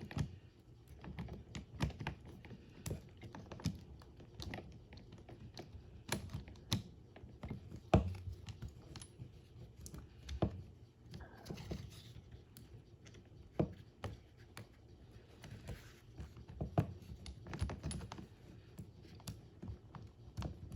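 Irregular light clicks and clatter of a saw chain and plastic parts of a small battery-powered handheld chainsaw being handled by hand, as the chain is fitted around the drive gear and seated in the bar's track. The motor is not running.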